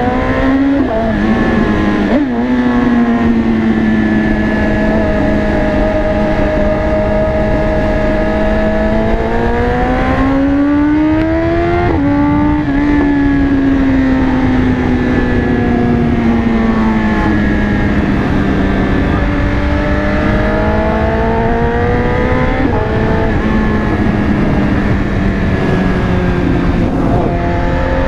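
BMW S1000RR's inline-four engine running under way, its pitch slowly falling and rising over several seconds at a time, with sudden steps in pitch about two, twelve and twenty-three seconds in.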